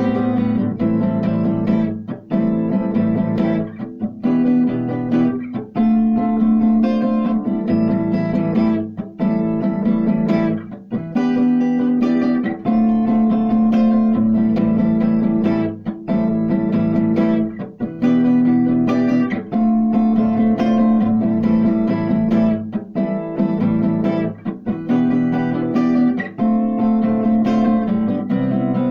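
Guitar music: plucked and strummed guitar chords changing about every second or two.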